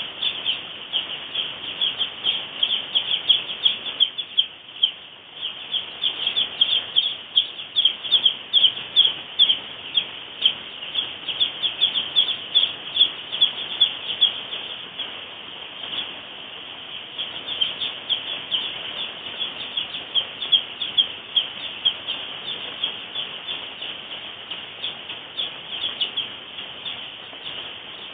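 A house full of two-day-old Ross 308 broiler chicks peeping constantly, a dense chorus of many short, high peeps overlapping one another.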